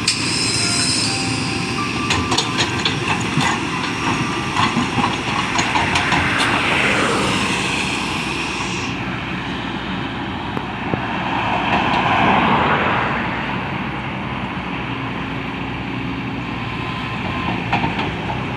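Excavator working: steady heavy machine noise with irregular metallic clanks, and a whine that swells and fades twice.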